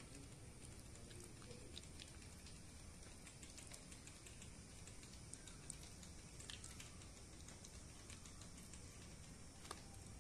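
Near silence with faint wet squishing and patting of hands rubbing thick masala paste into pomfret fish on a steel plate. A few light clicks are scattered through it, the sharpest about six seconds in and near the end.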